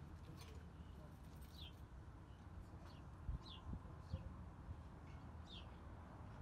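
Small bird calling faintly: a short, high, falling chirp repeated about every two seconds over a low background rumble, with a couple of faint low knocks about midway.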